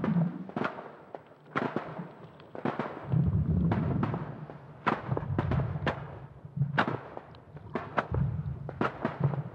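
Aerial fireworks shells bursting: irregularly spaced sharp bangs and crackles over a recurring low rumble of booms.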